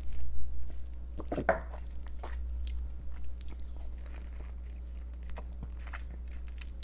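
Mouth sounds of someone taking a shot of tequila: a gulp and a loud breath just after the start, another brief burst about a second and a half in, then scattered small clicks and knocks.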